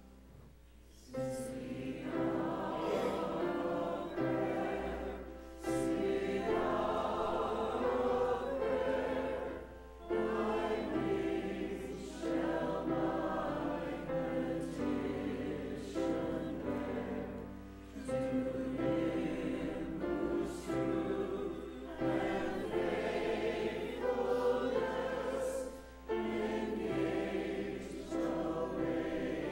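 Church choir singing an anthem in phrases separated by short breaths, coming in about a second in.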